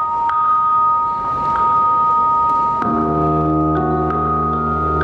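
Recorded music with keyboard tones: two high notes held steadily with light plucked accents, then about three seconds in a deep, sustained organ-like chord comes in beneath them.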